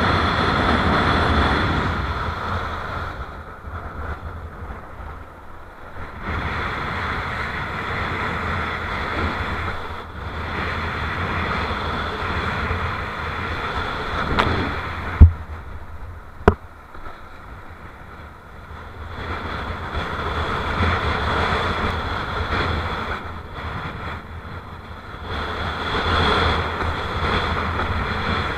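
Strong wind buffeting an action camera's microphone while a kiteboard rides through choppy surf, with water rushing under the board, rising and falling in gusts. Two sharp knocks, a little over a second apart, about halfway through.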